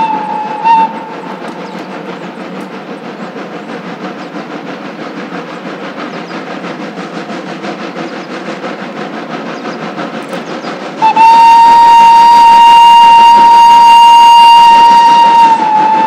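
Borsig-built Mikado steam locomotive 06 018 working a freight train. A whistle blast ends just under a second in, then its exhaust beats in a steady rapid rhythm. About eleven seconds in it sounds one long steady whistle lasting about four and a half seconds, dipping slightly in pitch as it ends.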